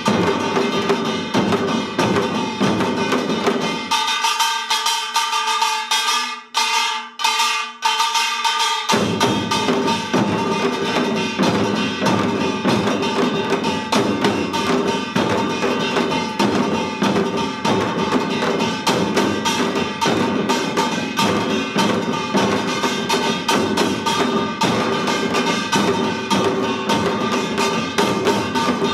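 A samul nori ensemble plays a fast, dense rhythm on janggu hourglass drums and buk barrel drums, with the ringing metal of the small gong on top. About four seconds in, the deep drum sound drops away for several seconds, leaving the higher strokes, with two short breaks. The full ensemble comes back in about nine seconds in.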